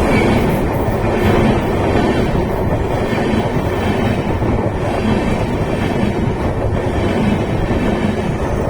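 A train passing at close range, heard from below at track level: a loud, steady rumble of wheels running on the rails.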